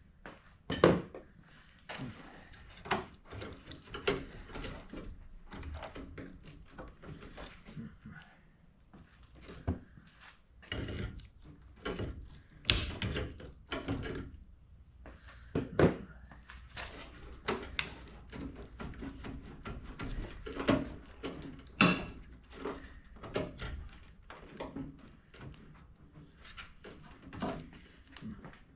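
Hand work on a car: irregular clicks, taps and knocks of tools and parts being handled, with a few louder thunks about a second in, around 13 and 16 seconds, and near 22 seconds.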